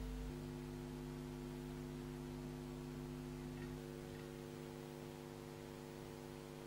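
Steady electrical mains hum: a low hum with several higher steady tones over it and faint hiss. The lowest part drops a little just after the start.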